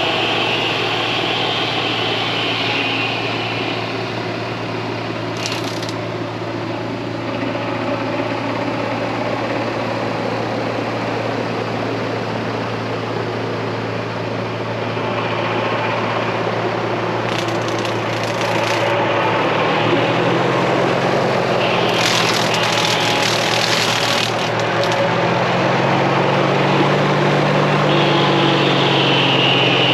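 Kubota KX40 mini excavator's diesel engine running steadily while it works a hydraulic tree-trimming mower attachment. A few brief hissing bursts come and go, and about two-thirds of the way through a deeper note joins the engine drone and it gets slightly louder.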